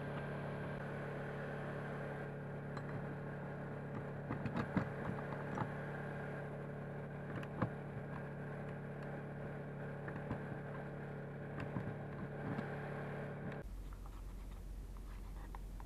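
A steady machine hum holding several even pitches, with scattered light taps and clicks of a bronze thru-hull fitting and a metal rod being handled in its hole in the hull. The hum cuts off suddenly near the end and leaves a fainter low hum.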